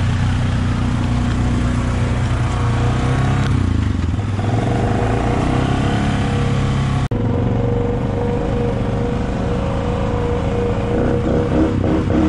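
ATV engine running as it is ridden, a steady hum with a sudden break about seven seconds in, after which the sound changes and turns uneven and pulsing near the end.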